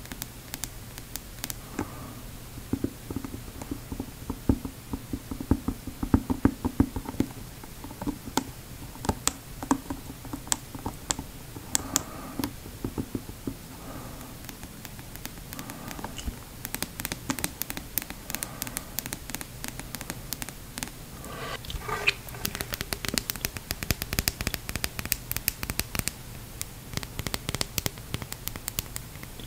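Fingernails tapping and scratching on a plastic snorkel tube and dive mask in quick, irregular clicks. The taps are scattered at first and come in fast, dense runs from about halfway through.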